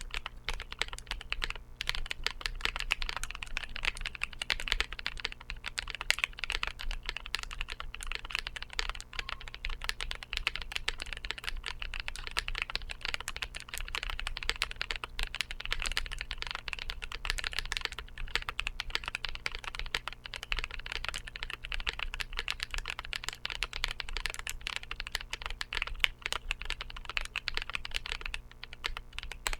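Steady, continuous typing on a Percent Studio Skog-Reboot mechanical keyboard with Drop Holy Panda tactile switches on 62 g SPRiT springs and GMK Godspeed keycaps: a dense run of key clacks with no pauses of note.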